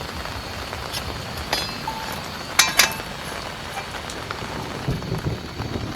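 Steady heavy rain falling, with a few sharp clinks; the loudest is a quick cluster about halfway through.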